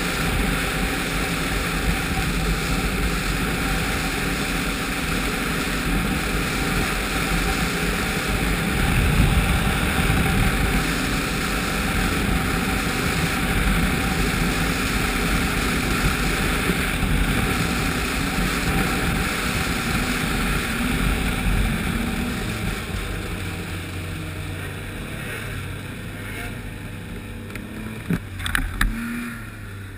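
Ski-Doo snowmobile with a Rotax 1200 4-TEC four-stroke three-cylinder engine running at trail speed, engine and track noise together. It eases off and gets quieter over the last several seconds, with a few knocks near the end.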